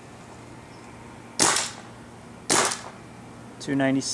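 Planet Eclipse Ego11 paintball marker fitted with a D.A.R.T. bolt kit, fired twice in semi-auto, two sharp pops about a second apart. Near the end a short pitched buzz sounds.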